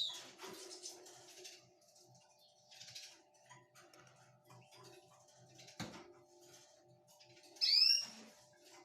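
A faint steady hum with scattered soft ticks, then near the end one loud, short chirp that rises and falls, like a small bird's peep.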